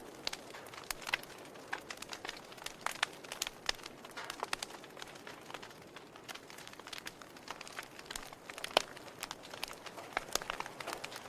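Wood fire burning in a fireplace, crackling: irregular snaps and pops over a soft hiss, with one louder pop about three-quarters of the way through.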